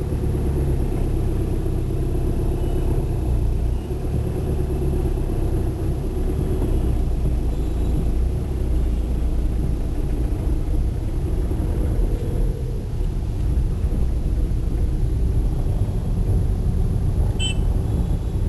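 Car engine and road rumble heard from inside the cabin, creeping through slow market traffic. A short high beep sounds near the end.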